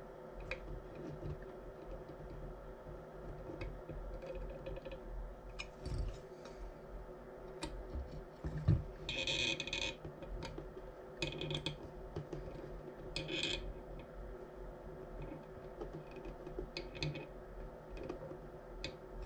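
Small clicks and scrapes of a screwdriver turning the slotted tuning screws in a UHF notch duplexer's cavities, with a few short scratchy scrapes around the middle. A faint steady hum runs underneath.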